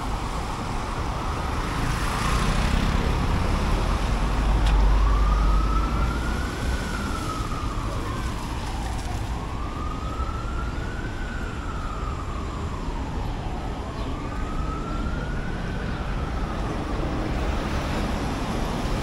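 An emergency vehicle's siren wailing, rising and falling slowly three times over steady street traffic noise. A low vehicle rumble swells early on, before the wail starts.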